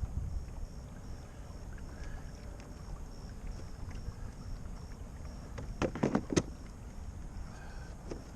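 Knocking and handling noise in an aluminium-free canoe: a low steady rumble with a quick cluster of sharp knocks about six seconds in. A faint pulsing insect buzz sits high in the background.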